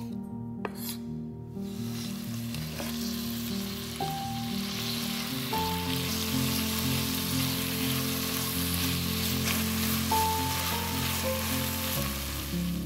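Diced vegetables sizzling steadily as they fry in oil and butter in a stainless steel saucepan, with chopped tomato stirred in with a spatula. Soft background music runs under it.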